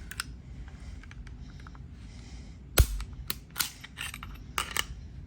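Metal clicks and clacks from a Sig Sauer P938 pistol being taken apart by hand as the slide-stop lever is worked out of the frame. One loud sharp click about halfway through, then several lighter clicks.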